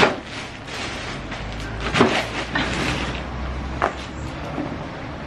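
Packages dropped and set down on the floor: a cardboard box and plastic mailer bags land with three sharp knocks, at the start, about two seconds in and near the end, with the rustle of handling between them, over a steady low hum.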